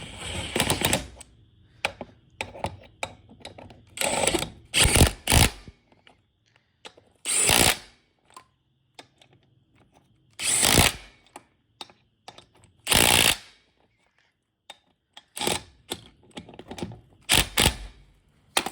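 A handheld power tool run in about six short bursts, with clicks and clinks of tools and parts between them.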